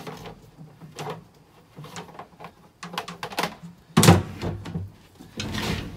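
Knocks, clicks and scrapes of a plastic tower garden reservoir and lid being handled while the pump cable is fed through a hole in the tank's side. The loudest is a sharp thump about four seconds in, and a longer scraping noise comes near the end.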